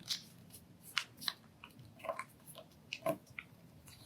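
Sheet of origami paper being folded and creased by hand: scattered soft crinkles and rustles.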